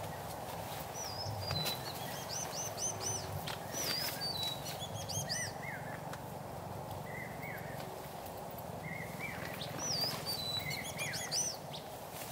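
A songbird singing a phrase of quick, high, looping whistled notes with some lower notes between. The phrase comes twice, over a steady low background hiss.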